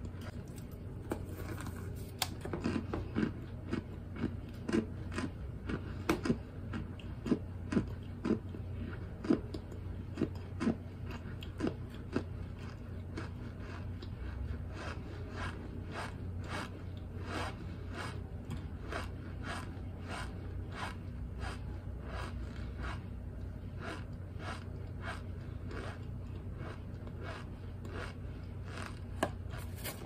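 Close-up chewing of crunchy baked cornstarch chunks: crunchy bites with squeaky, rasping rubbing of the packed starch. The bites are loudest in the first twelve seconds or so, then the chewing goes on softer at about two strokes a second.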